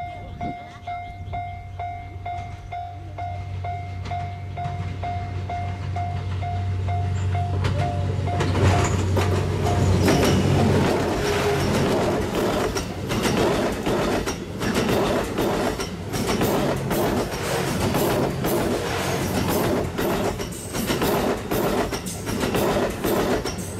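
A level-crossing warning bell rings about twice a second while the 87-series diesel railcar train approaches with a steady low engine hum. About ten seconds in the bell gives way as the train passes close by, its wheels clacking over the rail joints.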